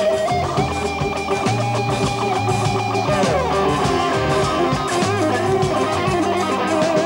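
Electric guitar solo in a slow blues, with held and bent notes, over Hammond organ bass and drums.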